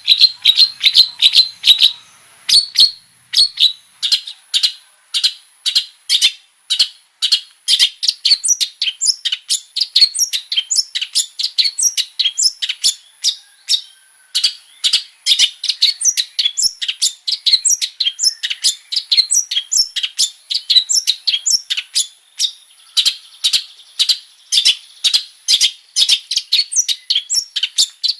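Long-tailed shrike (cendet) singing vigorously: a continuous stream of short, sharp chirping notes, several a second, in rapid runs with brief pauses. A thin, steady high tone sits beneath it.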